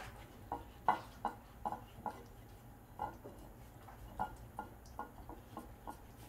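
Jindo dog licking at a food tray: a run of short smacking clicks of tongue and mouth, about two or three a second, with brief pauses.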